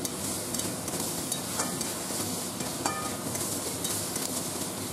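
Cubes of elephant foot yam and potato sizzling as they fry in spice paste in a metal kadai, stirred with a spatula that clicks against the pan twice. This is the kashano stage, where the vegetables are sautéed with the masala before water goes in.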